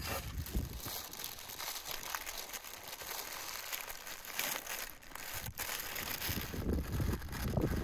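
Sheet of paper crinkling and rustling as hands fold and press it over food on a wooden table, with a few sharp crackles of the paper.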